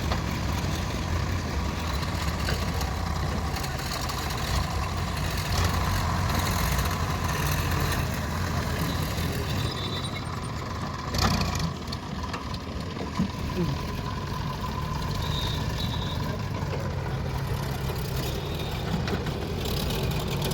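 Diesel engines of heavy machinery running steadily, with one sharp knock about eleven seconds in.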